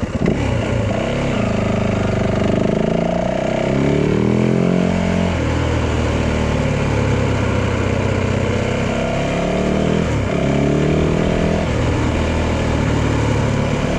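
Yamaha dirt bike engine running as the bike is ridden at low speed, its pitch rising and falling with the throttle, most noticeably about four seconds in and again about ten seconds in.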